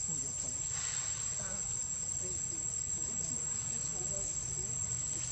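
Insects droning: a steady, unbroken high-pitched shrill.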